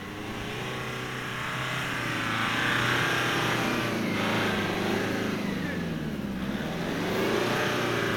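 Nissan 4x4's engine revving up and down under load as it drives over soft sand dunes, its pitch rising and falling several times and loudest about three seconds in and again near the end.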